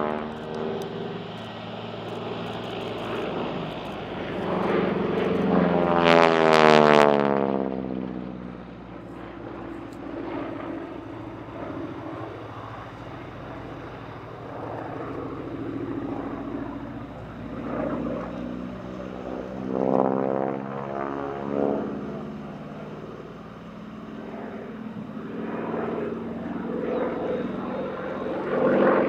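North American SNJ-3 Texan's Pratt & Whitney R-1340 Wasp nine-cylinder radial engine and propeller flying aerobatics, swelling and dropping in pitch as the plane passes. The loudest pass comes about six to seven seconds in, a second, fainter pass around twenty seconds in, and the engine grows louder again near the end.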